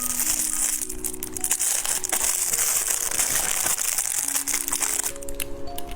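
Plastic snack wrapper crinkling and crackling, stopping about five seconds in, over background music.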